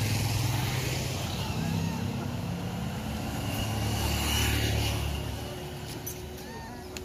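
Road traffic: a motor vehicle's engine running past on the road, a low drone that swells to its loudest about four to five seconds in and then fades away.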